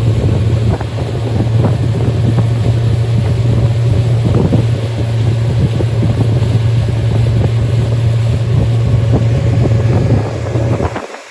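A new Suzuki 115 outboard driving a small boat under way at break-in speed, a steady low drone with wind buffeting the microphone. The drone drops out briefly near the end.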